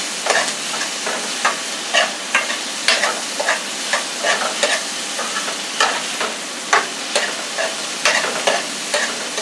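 Chopped peppers, onions and minced garlic sizzling in a little oil in a skillet while a spoon stirs them, scraping the pan in quick strokes about two a second over the steady hiss of frying.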